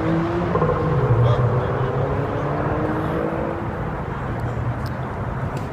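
Low engine rumble with a droning tone that slowly rises in pitch several times over.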